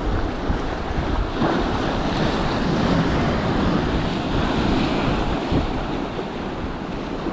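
Sea waves breaking and washing over boulders, the surf swelling a second or so in and easing near the end, with wind buffeting the microphone throughout.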